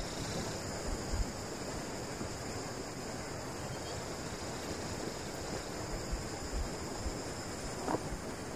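Steady outdoor wind on the microphone: an even hiss with irregular low rumbling buffets, and a faint tap near the end.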